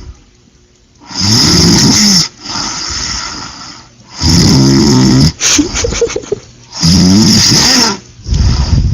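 A sleeping person snoring loudly in regular cycles: three long snores, each about a second long and roughly three seconds apart, with quieter breathing between them, and a fourth snore starting near the end.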